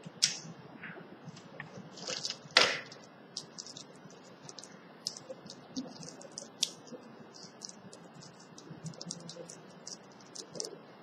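Light, scattered clicks and taps of small parts such as switch fittings and screws being handled, with two sharper knocks in the first three seconds.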